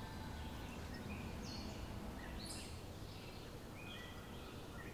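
Faint birdsong: short chirps from small birds, scattered every half second or so, over a low steady background noise.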